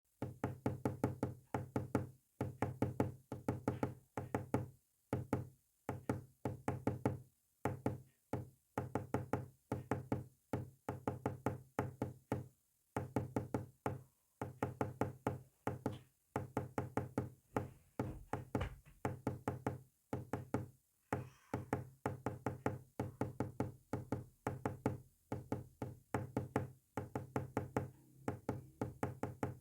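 Morse code sent as a low buzzing tone, keyed on and off in rapid short pulses that come in groups with brief pauses between them.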